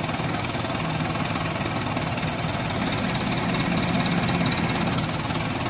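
Diesel engine of a pick-and-carry hydra crane running steadily while the crane holds a combine harvester on its hook. It gets slightly louder around the middle.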